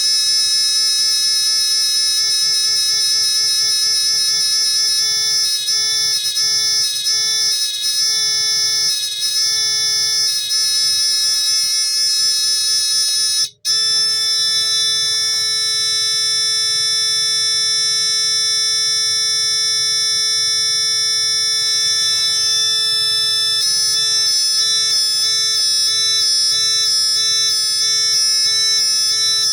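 Electronic sound-effect circuit sounding through a small buzzer, giving a loud alarm-like tone that wavers in a repeating pattern. It cuts out for a split second about 13 seconds in, comes back as a steadier tone, and switches to a quicker pulsing pattern about 24 seconds in, as the circuit steps through its sound modes.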